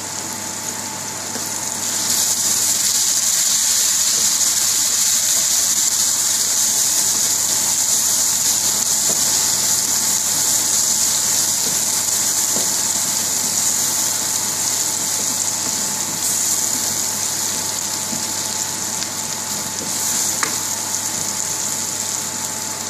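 Sliced onions sizzling in hot vegetable oil in a wok while a wooden spatula stirs them. The steady sizzle grows louder about two seconds in and eases off slowly.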